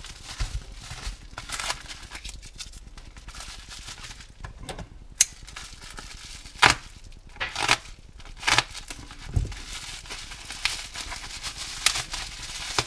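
Masking tape being peeled and torn off a bubble-wrapped parcel. The plastic crinkles, broken by irregular sharp cracks and pops.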